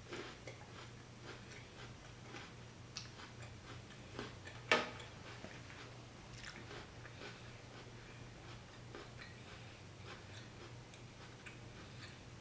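Close-up chewing and biting of crunchy raw jicama fries: small crisp clicks and crackles throughout, with one sharp louder click about five seconds in, over a faint low steady hum.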